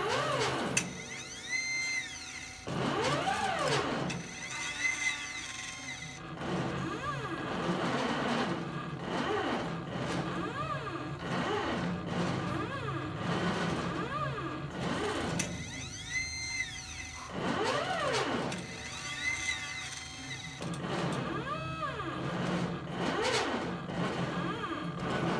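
CNC plasma cutter's stepper motors whining, the pitch rising and falling in an arch with each move of the gantry, over a steady hiss from the plasma torch cutting.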